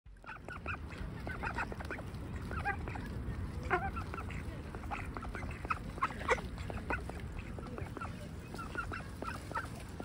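A group of ducks calling close by: many short quacks and chattering calls, in quick clusters throughout, over a low steady rumble.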